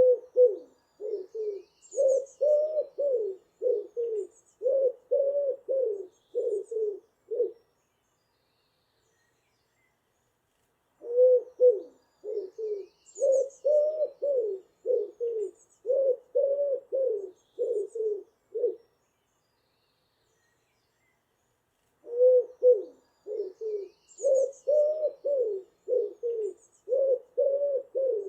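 A pigeon cooing in three long bouts, each a rapid run of about a dozen low coo notes, with pauses of a few seconds between bouts. Faint high chirps from a small songbird come in briefly during each bout.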